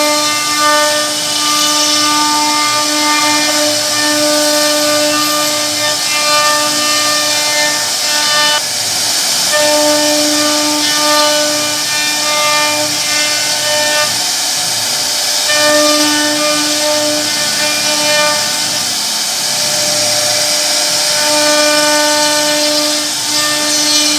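CNC router spindle whining at one steady pitch as its bit carves a relief pattern into wood, over a hiss of cutting. The whine drops away briefly a few times, about nine, fifteen and nineteen seconds in.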